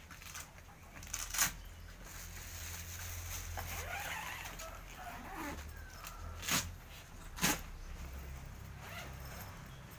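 Padded nylon airgun bag being handled and opened: fabric rustling and shifting, with three sharp clicks, about a second and a half in and twice more near the end.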